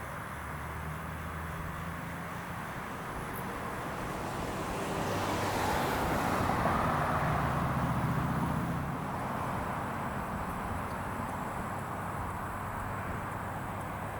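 Low rumble of a diesel freight train's locomotive engines with a steady low drone, swelling and fading again around the middle.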